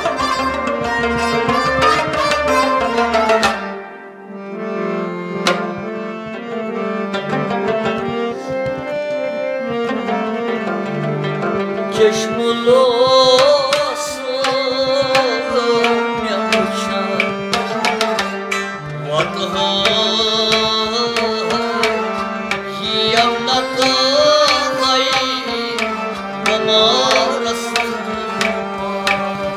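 Live Kashmiri Sufiyana music: harmonium, bowed and plucked long-necked string instruments and hand drums, with the drum strokes prominent. From about twelve seconds in, a man sings over the instruments.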